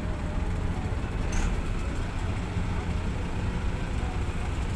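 Heavy diesel engine running with a steady low rumble, with a brief sharp clack about a second and a half in.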